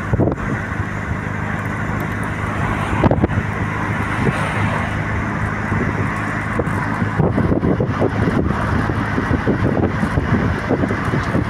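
Steady engine hum and tyre and road noise of a car driving along, heard from inside the cabin.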